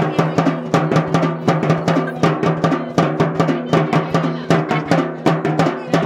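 Large double-headed barrel drum beaten in a fast, even rhythm, about four strokes a second, over a steady held low drone.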